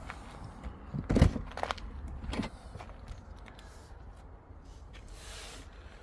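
Car doors being handled: a solid thump about a second in, then a few lighter knocks and clicks, and a short hiss later on.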